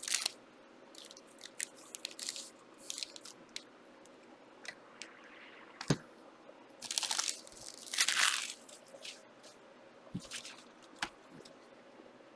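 Trading card packs and cards being handled and opened: scattered dry rustles and crinkles, with longer scrapes around seven and eight seconds in and a sharp click near six seconds.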